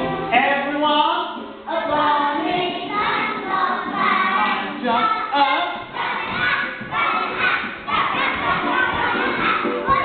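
A group of children singing together, several voices at once, with a few soft thuds.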